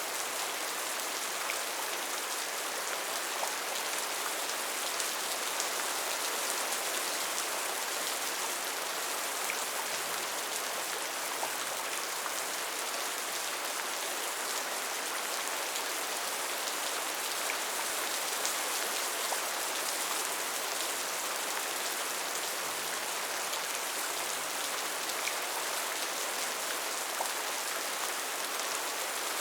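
Steady rainfall: an even hiss of rain with many small, scattered drop ticks, unchanging in strength.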